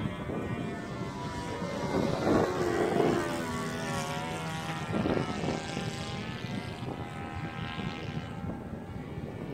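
Engine of an Ultra Stick 60 radio-controlled model airplane running in flight overhead, its drone growing louder about two seconds in and again about five seconds in as the plane passes.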